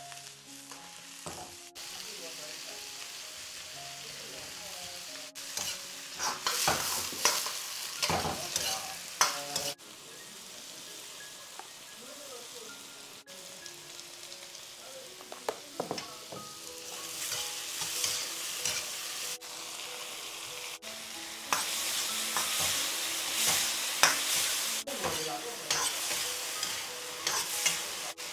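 Vegetable chunks sizzling in a black iron wok while a steel ladle stirs them, with repeated loud scrapes and clanks of the ladle against the wok. The scraping comes in spells over a steady frying hiss.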